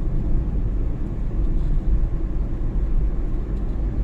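Steady low rumble of a Tata Altroz 1.2 petrol hatchback under way, heard from inside the cabin: engine and road noise while cruising.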